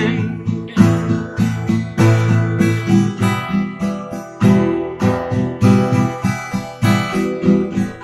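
Acoustic guitar strummed in a steady, even rhythm of chords, with no voice.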